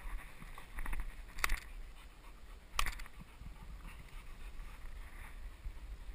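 Footsteps and rustling in dry scrub, with two sharp clicks, one about a second and a half in and another near three seconds, over a low wind rumble on the microphone.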